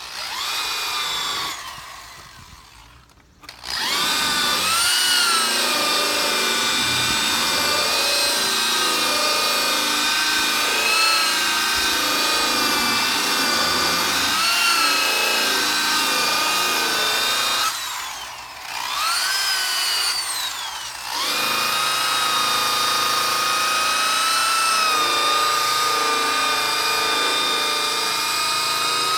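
Electric power buffer whining as it spins a buffing wheel loaded with cutting compound against an oxidised plastic headlight lens, its pitch dipping and recovering as the pad is pressed and moved. It winds down about two seconds in and spins back up a second or so later, then slows and stops again for a few seconds past the middle before running steadily once more.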